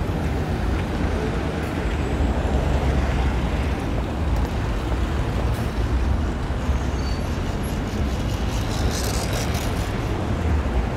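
City street traffic: a steady low rumble of cars and trucks running along a wide boulevard, with a brief higher hiss about nine seconds in.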